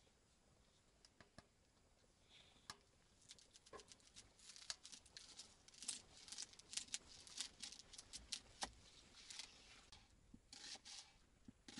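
Papery onion skin crackling and tearing as an onion is peeled by hand with a knife on a wooden cutting board. A few faint ticks at first, then a quick run of crisp crackles from about three seconds in, thinning out near the end.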